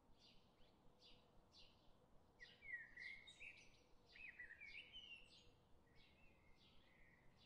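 Faint birdsong: one bird repeats a short high chirp about every two-thirds of a second. Louder twittering calls come in about two and a half seconds in and again near the middle.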